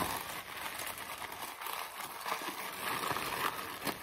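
Packing wrap crinkling and rustling in irregular bursts as hands unwrap a packed item.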